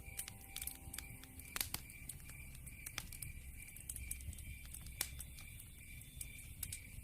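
Wood fire crackling in a fireplace: scattered sharp pops, the loudest about a second and a half, three and five seconds in, over a low rumble of burning.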